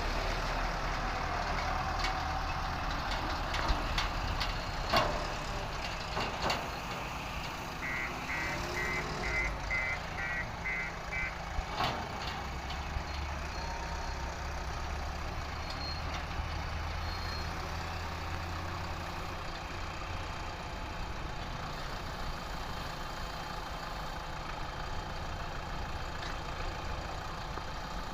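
Diesel engines of a backhoe loader and tipper truck running steadily, with a few sharp knocks in the first half. About a third of the way in, a reversing alarm sounds a quick run of about eight short beeps.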